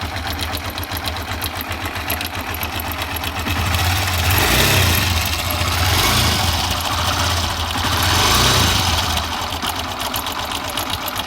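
Honda CB125 engine idling with a fast, even timing-chain rattle, revved up twice in the middle and settling back to idle near the end. The rattle comes from a slack timing chain whose tensioner rubber is worn out.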